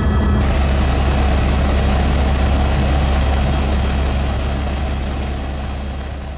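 Helicopter noise heard inside the cabin in flight: a steady low drone from the rotor and engine with rushing noise over it. A set of high whining tones drops out about half a second in, and the sound fades out near the end.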